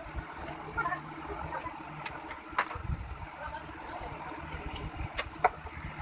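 Hand tube cutter working on a refrigerator's copper refrigerant line, with a few sharp metallic clicks about two and a half seconds in and twice more just after five seconds, over a steady low mechanical hum.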